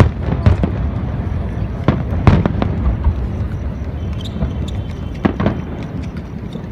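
Aerial fireworks going off: a string of sharp bangs at irregular intervals over a steady low rumble.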